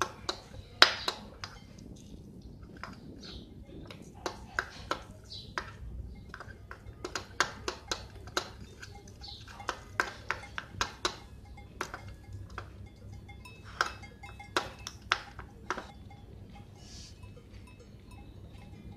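A metal spoon and a plastic spoon clinking and scraping against a small steel pan as egg is stirred and broken up, in irregular taps, often several a second.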